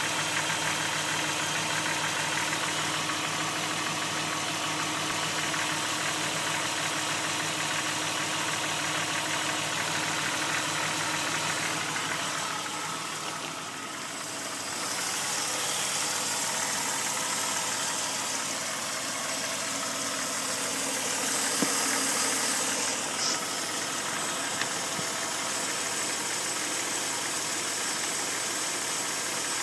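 1999 Jeep Grand Cherokee's 4.0-litre straight-six idling steadily with a knocking rattle, which a mechanic diagnosed as piston slap.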